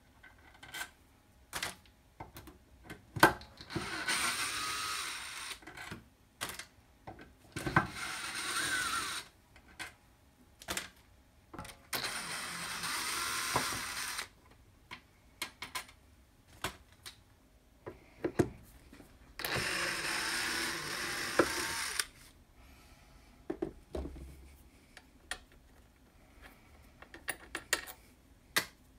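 Yellow DeWalt cordless drill/driver running in four bursts of about two seconds each, backing screws out of an aluminium plate during disassembly. Between the runs come short sharp clicks and clinks of screws and metal parts being handled, the loudest a single sharp click about three seconds in.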